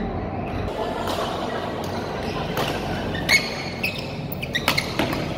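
Badminton rally: rackets striking the shuttlecock in several sharp cracks from about halfway through, the loudest a little past three seconds in, with short shoe squeaks on the court floor, over a steady background hum.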